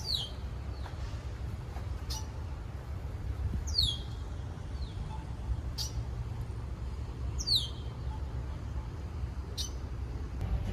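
A bird repeating a short, high call that slides down in pitch, about once every two seconds, over a steady low rumble.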